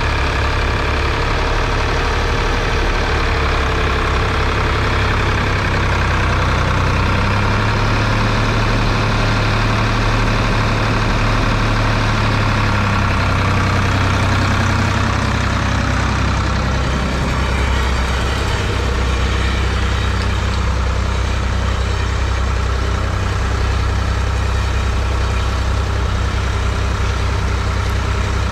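1970 Ford 3000's 2.9-litre three-cylinder diesel engine running steadily, a low drone at an even speed.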